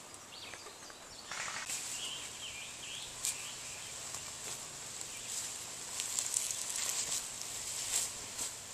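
Rustling in leaf litter and undergrowth with scattered small cracks of twigs. A bird chirps briefly about two seconds in.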